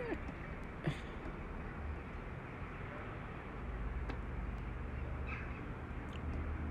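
Steady low outdoor background rumble, a little stronger in the second half, with a few faint short ticks from time to time.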